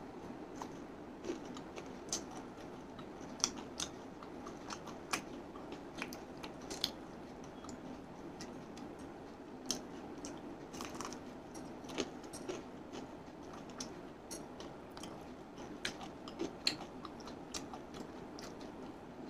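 A person chewing and biting crispy fried chicken, the breaded coating crunching in short, irregular crackles over a steady low background noise.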